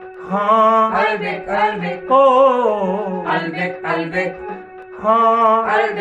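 Background music: a voice sings long, wavering notes in short phrases over a steady held tone.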